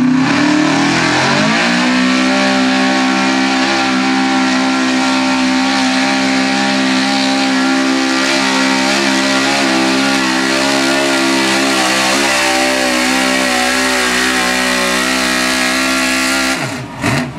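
Modified 4x4 Chevrolet pickup's pulling engine rising in revs over the first couple of seconds, then held at a steady high pitch with slight wavering as it drags the weight sled. Near the end it drops off abruptly.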